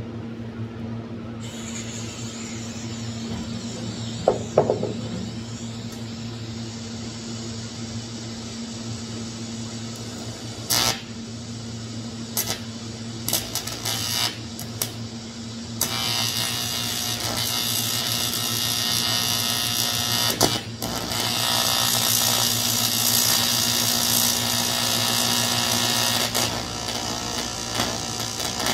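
TIG welder on aluminum, hand scratch-started because its high-frequency start is not working. A steady transformer hum runs throughout. Several short arc strikes come near the middle, then a sustained buzzing arc lasts about ten seconds, with one brief break.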